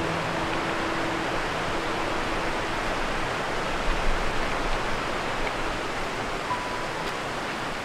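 Steady rushing of a fast mountain stream, an even wash of water noise.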